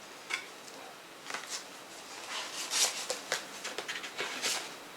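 A CD case and its paper booklet being handled: scattered light clicks and rustling, busiest in the second half.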